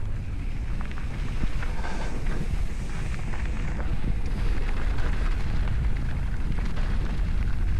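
Wind rumbling on the microphone of a mountain bike rider moving along a trail, with many small clicks and rattles from the bike and the ground under the tyres.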